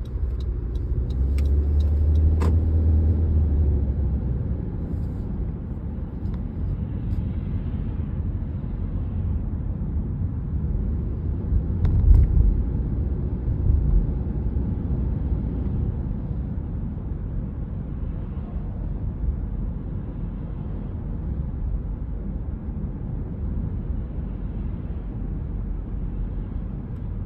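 Car engine and road noise from inside the cabin while driving: a steady low rumble, with a stronger engine hum in the first few seconds and a couple of dull thumps about halfway through. The small engine tick the driver had been hearing is not audible, which he takes as the tick having improved after filling with 93-octane fuel.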